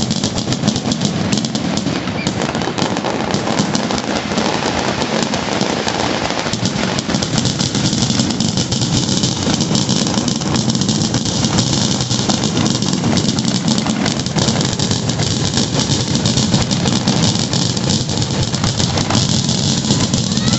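Fireworks firing in a dense, continuous barrage: rapid overlapping bangs and crackles that merge into a steady roar.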